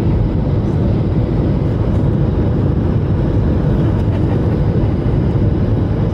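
Steady low rumble of a jet airliner on approach heard from inside the cabin: engine and airflow noise at a window seat over the wing.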